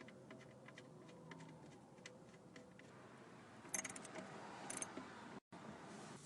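Faint, irregular clicking of a ratchet and 14 mm socket as the oil-pan drain plug is screwed back in, with two short, louder metallic clinks about four and five seconds in.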